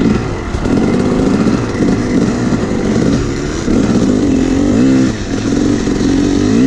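Yamaha 250 two-stroke dirt bike ridden along a dirt road, its engine revving up and down as the throttle is worked, with short drops in revs about three and a half and five seconds in.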